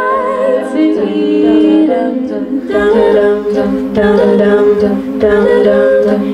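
An a cappella vocal group singing layered harmonies with no instruments, the voices held over a steady low bass note, with the chords moving in short pulses in the second half.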